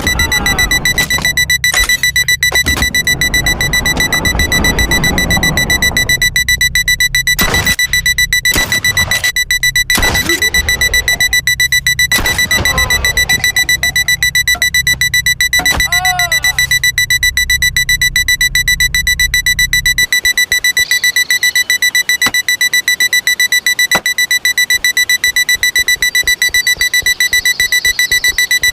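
Electronic alarm clock beeping without stop: a high, rapidly pulsing tone. Music and a low rumble play underneath until about two-thirds of the way through, with a few sharp knocks about a third of the way in.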